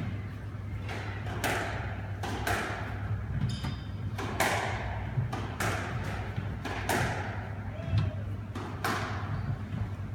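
Squash rally: sharp cracks of the ball off the rackets and the walls, echoing in the court, coming unevenly about once a second. A brief high squeak comes about three and a half seconds in.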